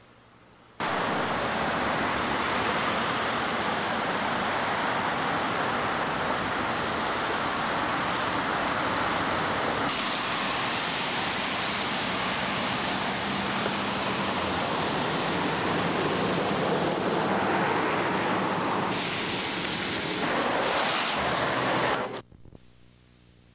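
Loud, steady rushing noise with no tone in it. It starts abruptly about a second in and cuts off suddenly near the end.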